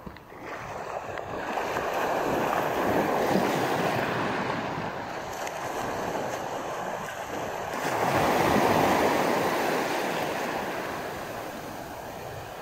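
Small waves washing up onto a sandy shore, a steady rushing hiss that swells twice, once near the start and again about two-thirds of the way through.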